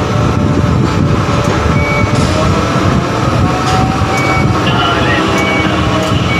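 Steady loud rumble inside a tower crane cab as the operator works the joysticks and the crane moves, with a few short high beeps.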